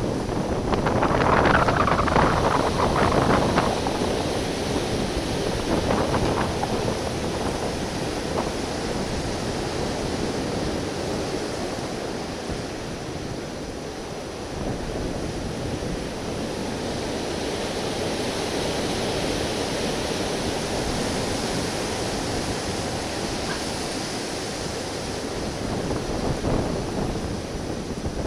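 Wind buffeting the camera's small microphone over the steady wash of ocean waves breaking against the rocks. There are louder surges in the first few seconds and again near the end.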